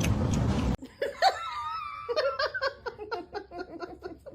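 A steady rushing noise cuts off under a second in, followed by a person laughing in a quick run of short giggling pulses, about four a second.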